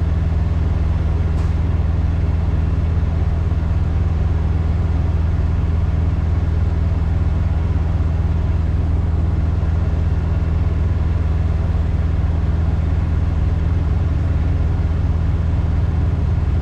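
Peterbilt semi-truck's diesel engine running steadily at low revs, a deep even hum that holds unchanged throughout, while the truck is being backed into a tight dock.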